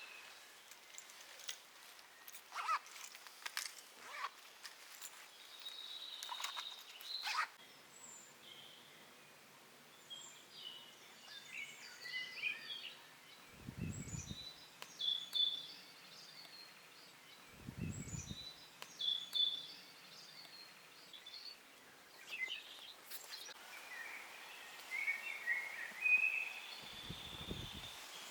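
Woodland birdsong: several birds chirping and trilling on and off, with a few sharp clicks early on and three short low thumps.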